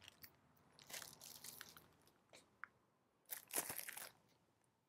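Faint rustling and crinkling of an LP record jacket being handled and lifted out of a record bin, with the loudest rustle about three and a half seconds in.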